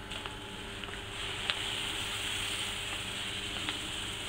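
Crushed malt pouring from a bag into the mash basket of water, a steady hiss of falling grain starting about a second in, with a few light ticks: doughing in for the mash.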